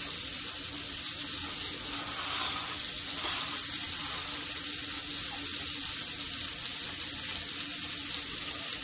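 Steady kitchen hiss with a faint constant hum underneath.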